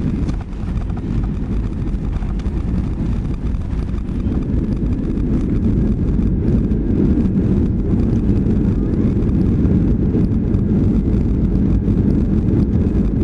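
Cabin noise of a Boeing 757-200 rolling down the runway after touchdown: a steady low rumble of engines and wheels that grows louder about five seconds in and then holds.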